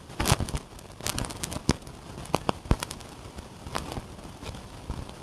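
An irregular series of sharp clicks and knocks, about ten in all, the loudest near the start.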